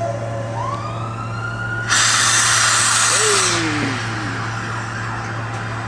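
Steam locomotive whistle, a green saddle-tank engine's: a rising whistle note about half a second in, then a loud rush of steam for about a second and a half that cuts off suddenly.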